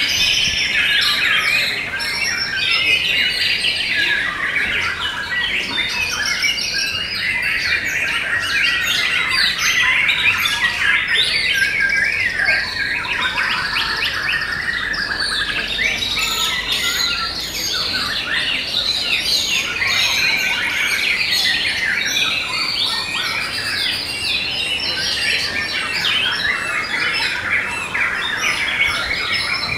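White-rumped shamas singing: a dense, unbroken stream of varied whistles and chirps, with several birds overlapping.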